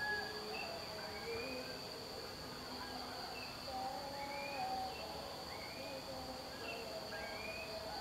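Outdoor birdsong: several birds giving short whistled notes and quick rising chirps at irregular intervals, over a steady high-pitched insect buzz.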